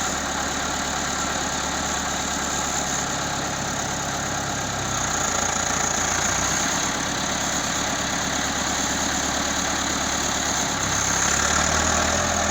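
A heavy road-work machine's engine runs steadily, its note shifting slightly about five seconds in and again near the end.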